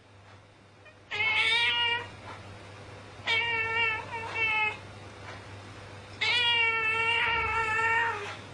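Domestic cat yowling during a fight with another cat: three drawn-out yowls, the middle one briefly broken and the last about two seconds long.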